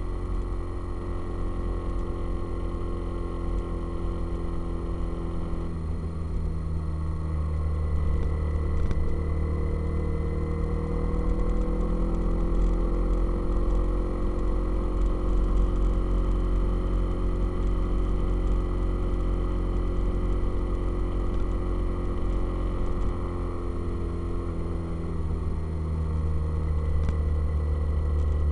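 Motorcycle engine running on the move, with a steady low rumble. Its note rises about a quarter of the way in, holds, and drops back near the end as the engine speed changes.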